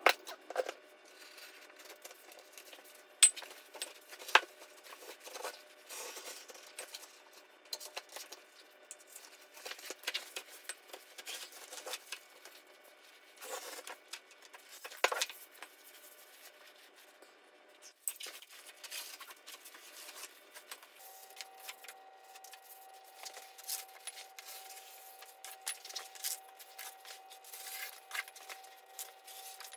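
Carpet tiles being handled and laid by hand: scattered rustles, taps and clicks, with a few sharper knocks. A faint steady tone starts about two-thirds of the way in.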